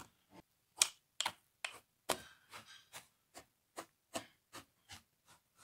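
Hooves of a toy horse figure tapping and scuffing on a green grainy arena floor as it is moved along in a trot: light, irregular clicks, about three a second.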